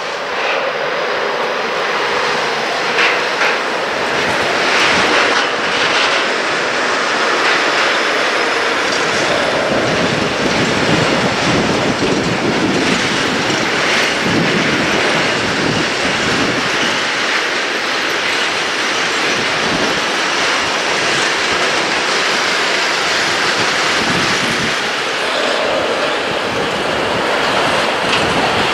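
A long freight train of tank wagons rolling past, its wheels running over the rails in a steady, continuous noise.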